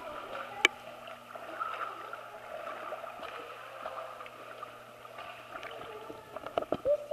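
Pool water splashing and sloshing as a dog paddles and thrashes, with a run of sharper, louder splashes near the end.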